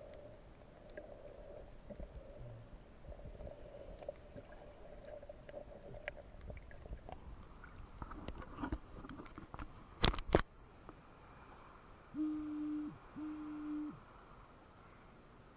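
Muffled underwater noise as a handheld action camera is held below the surface, then the camera comes up through the water with sloshing and ticking, and two sharp knocks about ten seconds in. Near the end come two short steady low tones, each under a second.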